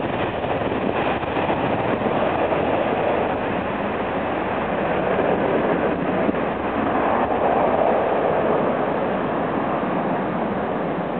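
Airbus A330-200's Rolls-Royce Trent 700 jet engines at takeoff thrust during the takeoff roll: a steady rushing engine noise that swells a little about seven to eight seconds in.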